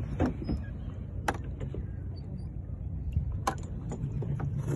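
A few sharp knocks and clicks from the phone and hands bumping against a hollow plastic float buoy, over a steady low rumble of wind and water on the microphone.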